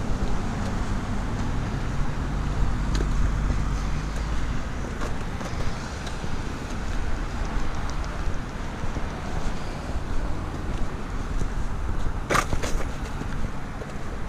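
Road traffic at a street intersection: car engines running and passing in a steady rumble, heaviest in the first few seconds. Near the end comes a short, sharp double click.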